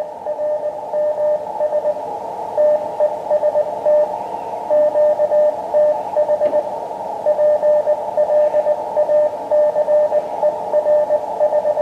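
Morse code (CW) signal received on an Elecraft KX2 transceiver's speaker: one steady beeping tone keyed in dots and dashes over a hiss of band noise. It stands well clear of the noise, a very good signal on the freshly tuned magnetic loop antenna.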